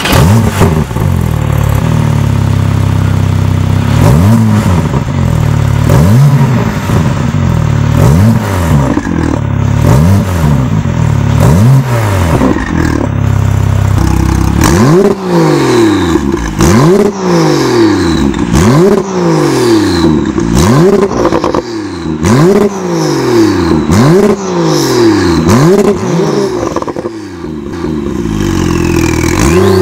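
Porsche 991.2 Carrera S twin-turbo flat-six, fitted with a catless downpipe and valved cat-back exhaust, revved in repeated blips about once a second while stationary, with sharp cracks between the revs. About halfway through, with the exhaust valves switched on, the revs turn sharper and louder.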